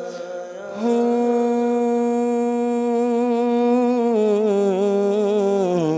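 A man singing a naat unaccompanied into a microphone: after a short breath he holds one long drawn-out note with a slight waver, then steps down in pitch twice, the second time near the end.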